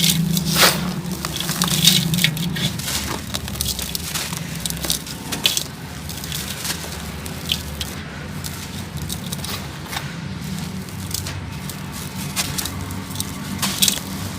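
Sand-cement chunks being crumbled and crushed: dense, irregular crackling and crunching with many small sharp cracks, heaviest in the first few seconds.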